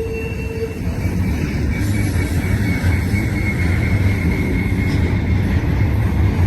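An intermodal freight train rolling past: a steady low rumble from the locomotives and cars. A short steady tone cuts off just after the start, and a faint high, thin tone sounds through the middle.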